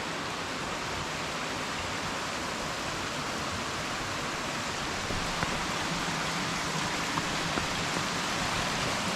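Steady rush of a mountain creek and waterfall, growing a little louder about halfway through.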